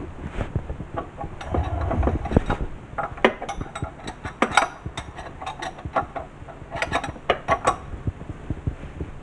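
Hand tools and metal parts clicking and clinking in irregular clusters, with a low rumble about two seconds in.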